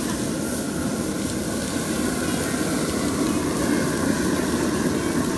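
Ocean perch fillets searing on the hot grate of a REC TEC Bullseye pellet grill running wide open at about 600 degrees: a steady sizzling hiss over the low rush of the grill's fire.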